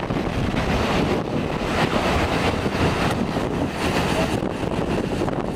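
Steady rushing noise with a low rumble: wind buffeting the microphone over the running noise of a Furka steam rack railway train on the move.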